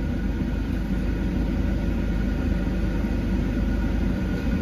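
Steady low hum of a car's engine idling, heard from inside the cabin.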